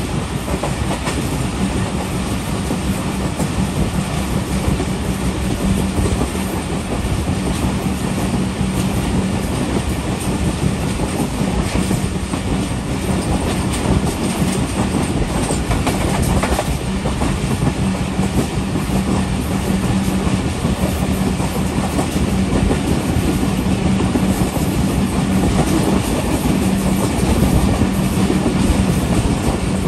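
Passenger train running along the track: a steady rumble of wheels on rail, with a steady low hum underneath.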